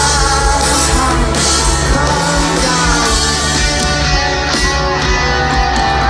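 Live rock band playing loudly through a concert PA, recorded from within the crowd, with a sung melody over the band.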